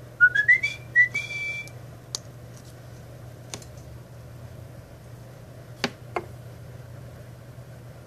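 African grey parrot whistling a quick run of short notes that climb in pitch, ending on a briefly held note, followed by four scattered sharp clicks.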